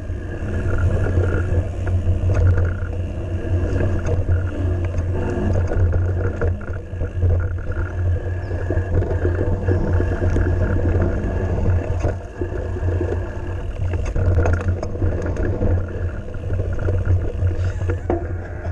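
Mountain bike riding fast on a dirt woodland trail: a steady heavy rumble of wind buffeting the microphone and tyres on the ground, with scattered clicks and rattles from the bike over the bumps.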